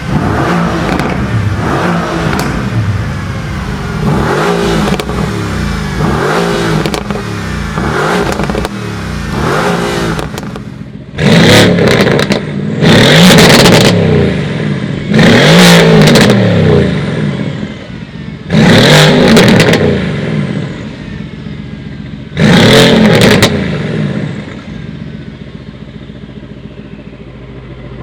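Mercedes-AMG GT R's twin-turbo V8 being revved while standing still. For about ten seconds it gives short throttle blips, roughly one a second. Then come four long, loud revs, each climbing and falling back to idle, and it settles to a steady idle near the end.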